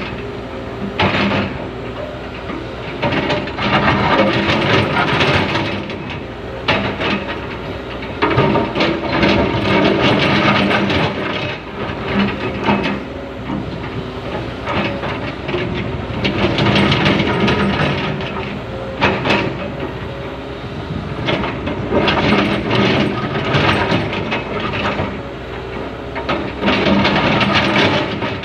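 Komatsu excavator working rock: the diesel engine runs steadily under load while the steel bucket scrapes and knocks against stone with repeated clanks and grinding. The noise swells and eases every few seconds as each scraping pass is made.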